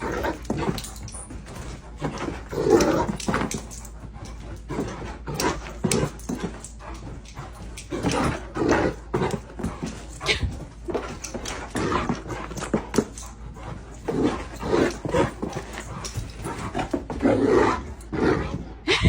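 A dog making short vocal sounds over and over at an irregular pace, mixed with scattered clicks and knocks.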